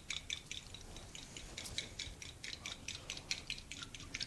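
Faint, quick clicking and wet ticking of food being mixed in a bowl, about five light clicks a second.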